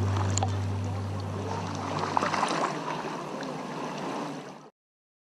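Underwater water noise, gurgling and crackling with scattered clicks, under a held low note of background music that stops about two and a half seconds in. The whole sound fades and cuts to silence near the end.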